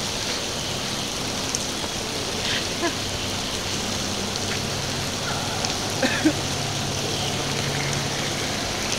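Steady hiss of rain falling, with the low hum of a small motorboat's engine coming up in the second half as the boat runs in through the inlet.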